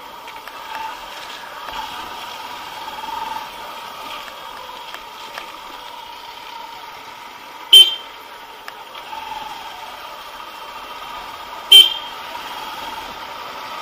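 Two short, loud toots of a motorcycle horn about four seconds apart, over the steady running of a Bajaj CT 110X's single-cylinder engine while riding.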